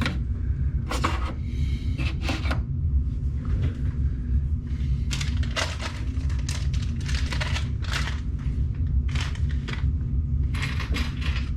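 Packaging and small parts being handled and put away: a string of short crinkles, clicks and clatters, over a steady low hum.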